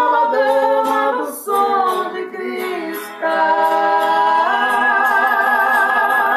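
Sertanejo duet of male and female voices singing in harmony over instrumental backing, the closing phrase rising about four and a half seconds in to one long held note.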